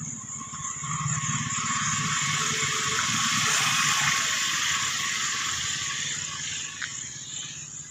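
Outdoor ambience: a steady high-pitched insect drone, with a broad rushing noise that swells to a peak about four seconds in and then fades.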